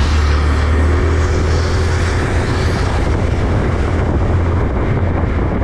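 Single-cylinder 125 cc scooter engine running steadily under load while climbing a steep road, heard under heavy wind buffeting on the microphone.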